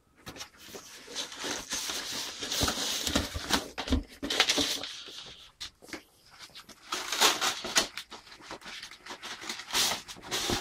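Packaging being handled: a shoebox lifted out of a cardboard carton and a bag pulled off it, rustling and crinkling in irregular bursts, with scattered small knocks of cardboard.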